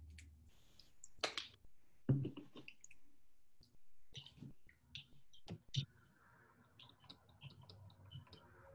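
Scattered light clicks and taps as plastic paint squeeze bottles are handled and set down on the table, then a soft, steady rolling as a rubber brayer spreads fluid acrylic paint across a printing plate near the end.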